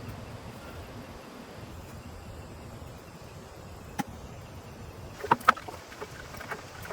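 Steady rain noise, with one sharp click about four seconds in and a quick cluster of knocks a second later.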